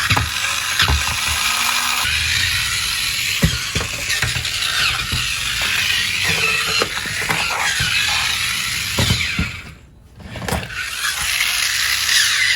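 Battery-powered toy's small motor and plastic gears whirring and clattering, with scattered knocks; it cuts out briefly about ten seconds in, then starts again.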